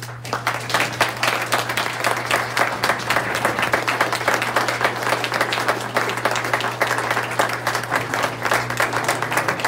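Audience applauding, many hands clapping fast and steadily, starting abruptly right after a speech ends.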